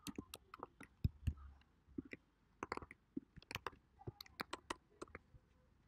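Computer keyboard typing: irregular key clicks coming in quick clusters with short pauses between them.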